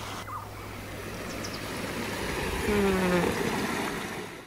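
Steady rush of water from a cascading fell stream, with a few brief high chirps over it and a short low pitched sound about three seconds in. The rush cuts off suddenly at the end.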